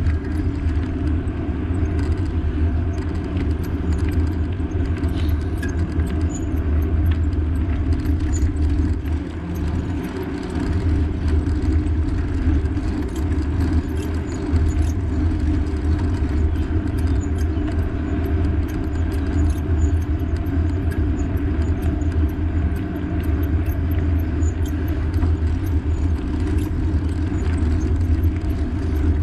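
Steady low rumble of riding noise, with light rattling clicks scattered throughout.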